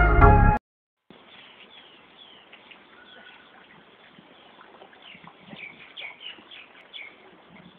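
Music stops abruptly about half a second in. After a short silence, small birds chirp in short, high calls over faint outdoor background noise, most busily a few seconds later.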